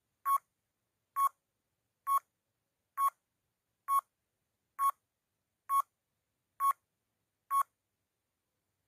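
Countdown timer sound effect beeping: nine short, identical beeps at one pitch, a little under a second apart.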